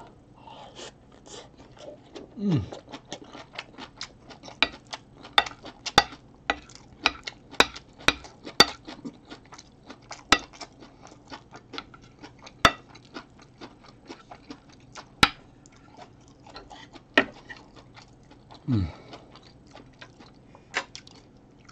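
Close-miked eating: wet chewing and mouth clicks, with a wooden spoon and chopsticks tapping and scraping a ceramic plate, making many sharp irregular clicks. Twice, at about two and a half seconds and near the end, a brief low hum falls in pitch.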